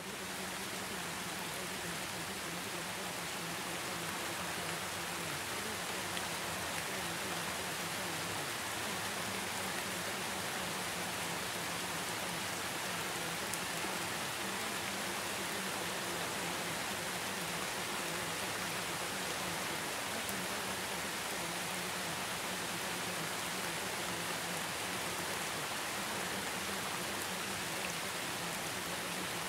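Steady, unchanging rain-like hiss, used as the masking track of a subliminal, with the affirmations hidden beneath it.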